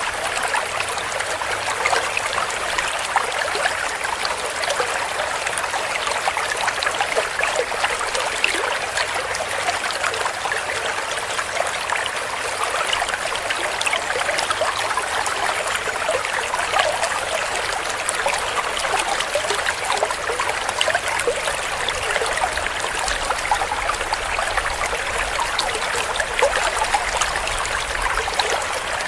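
Shallow clear stream running and gurgling over stones in a steady, unbroken rush, thick with small splashing and bubbling sounds.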